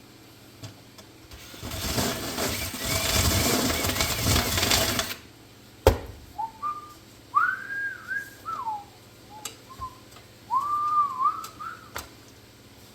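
A harsh noise lasting about three and a half seconds, then a sharp click, then a person whistling a tune in two short phrases of rising and falling notes.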